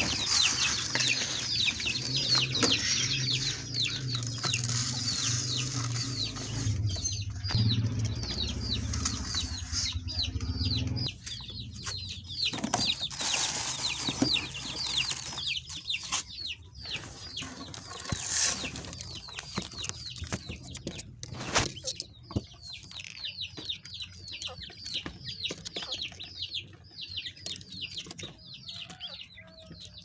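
Many small cage birds chirping without pause in quick, short, falling calls, over the rustle and knocks of bird seed being scooped from a plastic bucket and fed out.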